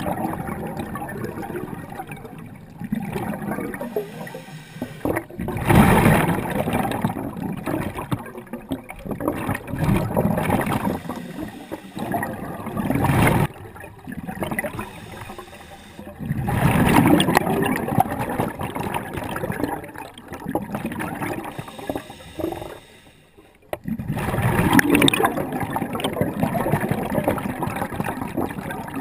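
A scuba diver breathing through a regulator underwater. Bubbly rushes of exhaled air come every few seconds, with quieter stretches between breaths.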